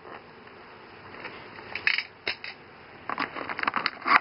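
Plastic blister packaging of a carded action figure being handled: scattered crackles and clicks, with a dense run of them in the last second or so.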